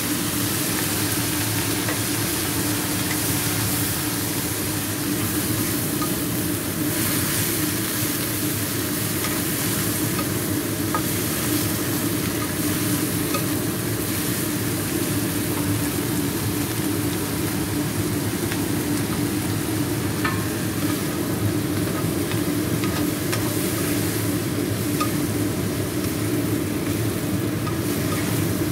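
Fried tempeh cubes, chilies and sweet soy sauce sizzling in a nonstick frying pan while a wooden spatula stirs and tosses them, with faint scrapes and taps of the spatula. A steady hum runs underneath.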